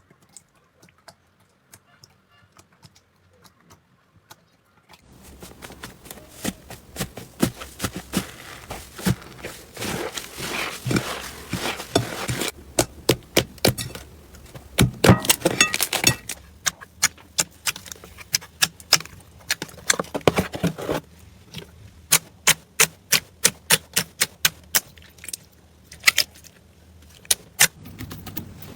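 Slime being squeezed and poked by hand, making many sharp crackling clicks and pops. It is faint for the first few seconds and grows louder from about five seconds in.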